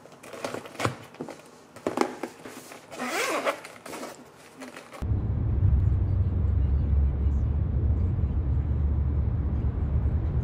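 Plastic food containers clicking and rustling as they are packed into an insulated lunch bag, with a zipper being pulled about three seconds in. About five seconds in, the sound changes to the steady low rumble of a moving car heard from inside the cabin.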